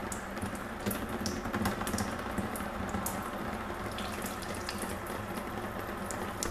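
CVT fluid trickling and dripping steadily from the exposed valve body of a Subaru Lineartronic transmission, with irregular sharp drip ticks.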